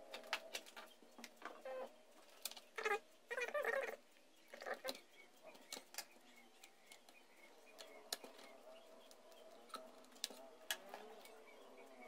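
Hands working inside an open HP desktop PC case, handling RAM modules and drive parts: scattered faint clicks and taps of plastic and metal. A few short rustling, scraping bursts come about three and five seconds in.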